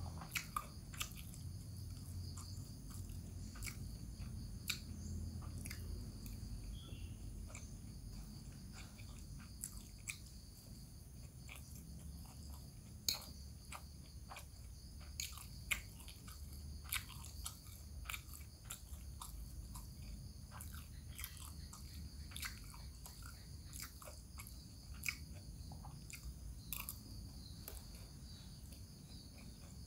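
Close-up chewing and biting of a person eating a mouthful of rice with bamboo-shoot vegetables, with scattered sharp clicks as the metal spoon taps the glass bowl now and then.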